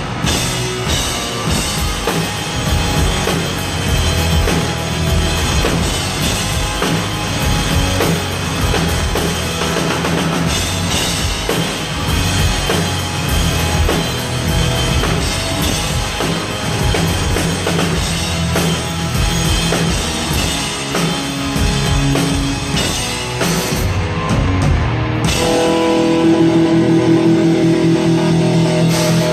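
Rock band playing loudly through a stadium PA during a soundcheck, with a drum kit and electric guitar. About 25 s in, the drums drop out and held guitar notes ring on.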